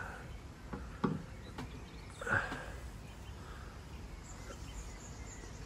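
Outdoor garden ambience: a steady low rumble, with a few short bird chirps and a soft knock about a second in.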